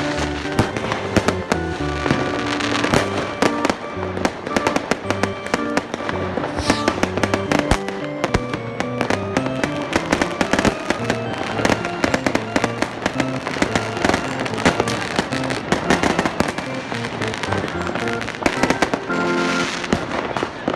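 Fireworks and firecrackers going off in a dense, irregular barrage of bangs and crackles, layered with background music carrying a stepping bass line.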